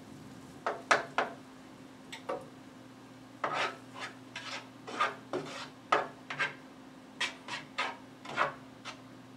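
A cooking utensil scraping and knocking against a skillet as asparagus spears are moved around in the pan, in a dozen or so short, irregular strokes.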